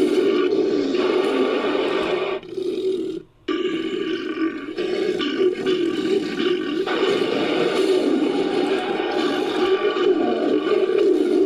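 Sound-designed creature calls for a fictional pterosaur, layered from film-monster and animal sound effects. A wavering pitched call runs almost throughout, breaking off briefly about three seconds in.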